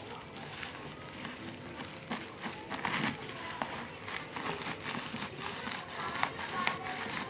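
Packaging being handled during an unboxing: crinkling plastic or cardboard with many small irregular clicks and knocks.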